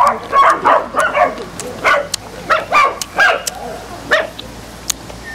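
Dogs barking, a quick string of short barks about two a second that thins out and stops about four seconds in.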